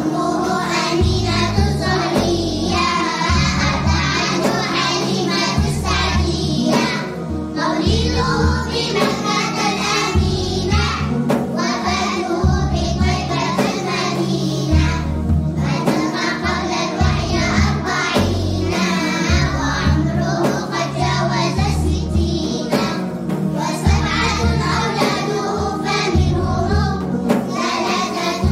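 Young children singing an Arabic nasheed together, about the Prophet Muhammad and his lineage, over a backing track with a steady low beat.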